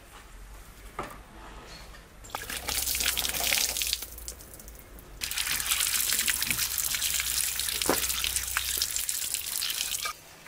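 Water poured from a jug over peeled garlic cloves in a wicker basket, splashing through the weave onto the ground. It comes in two pours, a short one about two seconds in and a longer one that stops suddenly near the end.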